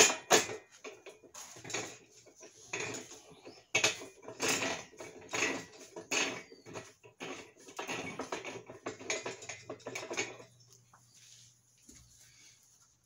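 Irregular rubbing and clicking as a rubber grip, wetted with soapy water, is forced onto the steel handle of a geared engine stand; the noises stop about ten and a half seconds in.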